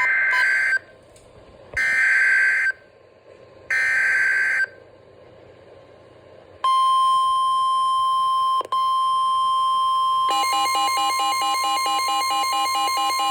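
Emergency Alert System tones. First come three short buzzy SAME header data bursts, each about a second long. After a pause, a steady single alert tone sounds. About ten seconds in, the pulsing two-tone EAS attention signal begins, with a second tone joining the first.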